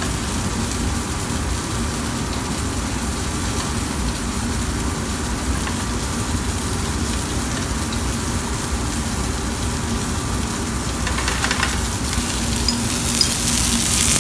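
Steak frying in butter in a skillet while it is basted, a steady sizzle that grows louder and brighter near the end.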